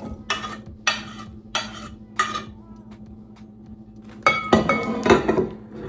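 A plastic utensil tapped four times on the rim of a glass mixing bowl, sharp ringing knocks about two-thirds of a second apart, then a denser stretch of scraping and clinking against the glass as chopped ingredients are stirred together. A steady low hum runs underneath.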